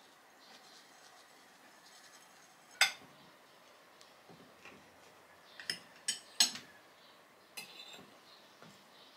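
Metal forks clinking and scraping on ceramic plates while pancakes are cut and eaten. There is one sharp clink, the loudest, just under three seconds in, then a quick run of three clinks a little after halfway and another about a second later.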